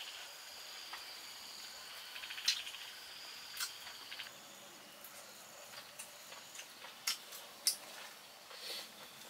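Insects, crickets by their sound, chirping and trilling steadily in high thin tones, with a short rapid pulsed trill about two seconds in. Over this come a few sharp mouth clicks and smacks of chewing grilled pork off a skewer, the loudest two near the end.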